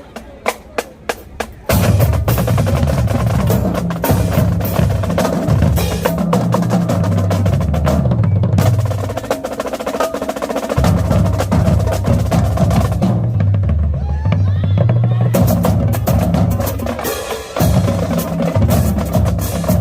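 A marching drumline opens with about six evenly spaced sharp clicks, then comes in full: snare rolls and rapid strokes over tuned bass drums whose low notes step between pitches.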